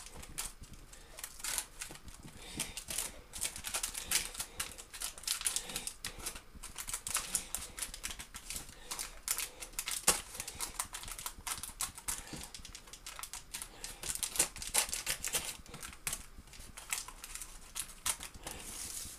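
A metal spoon tapping and scraping in a foil container lined with baking paper, pressing down a biscuit crumb mix: an irregular run of small clicks and scrapes.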